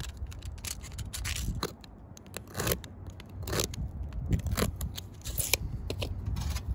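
Back of a hook-blade utility knife scraping across the gritty surface of an asphalt shingle in a series of short, irregular strokes, scoring the granules to mark a cut line.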